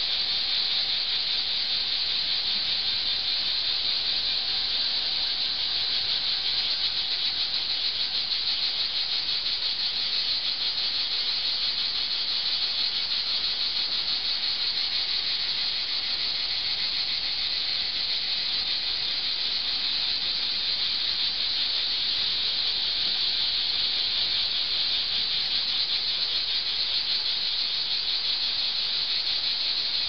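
A chorus of cicadas singing: a steady, high-pitched buzz with a fast, fine pulse that holds without a break.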